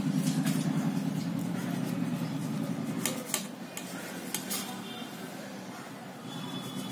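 Kitchen knife clinking and scraping against a stainless steel plate while cutting rotis, with a few sharp clicks, the loudest about three and four and a half seconds in. Under it a low hum, the loudest sound, fades out by about three seconds in.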